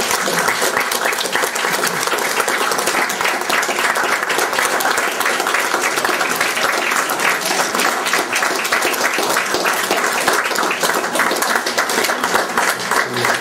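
Audience applauding steadily, a dense run of many hands clapping at once.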